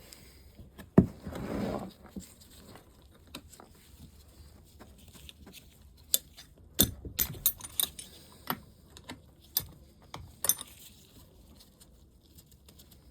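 Small metal clinks and taps of hand tools and loose engine fasteners being handled. There is a sharp knock about a second in, followed by a short rasping burst, then a scatter of light clicks further on.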